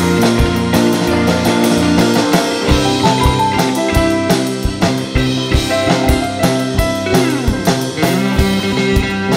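Live band playing an instrumental passage: a drum kit keeps a steady beat under guitar lines and bass, with guitar notes sliding in pitch about seven seconds in.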